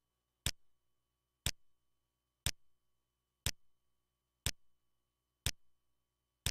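Countdown leader ticks on a broadcast commercial slate: a short click once every second, in time with the countdown digits.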